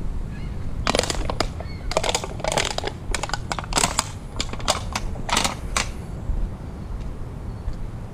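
Scrap items being rummaged through and handled: a quick run of sharp clattering knocks and rattles for about five seconds, then it stops. Under it runs a steady low rumble of wind on the microphone.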